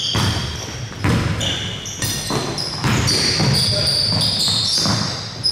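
Sneakers squeaking on a hardwood gym floor in many short high squeaks, with a basketball bouncing, during a basketball game in an echoing hall.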